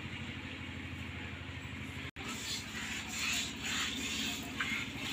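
Cow being milked by hand: short hissing squirts of milk into a steel pail, about two to three a second, starting about two seconds in. A steady low engine-like hum runs underneath.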